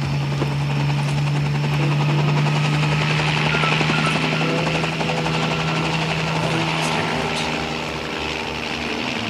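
Helicopter flying, its rotor beating rapidly under a steady low drone that fades about seven seconds in.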